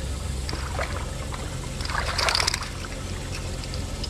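Water lapping and splashing at the side of a small fishing boat over a steady low rumble, with a brief louder splash about two seconds in as a hooked redfish is worked up to the boat.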